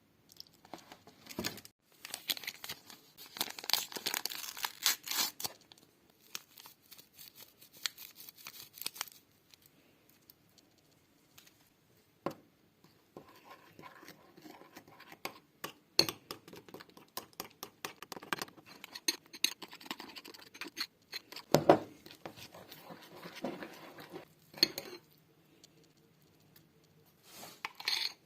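Kitchen preparation sounds: packaging crinkling and tearing, with scattered clinks and knocks of utensils and dishes.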